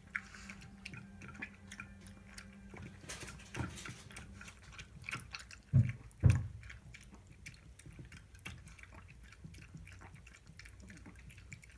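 Chihuahua eating from its bowl, gulping its food fast: many quick small clicks of chewing and licking, with two louder knocks close together about halfway through.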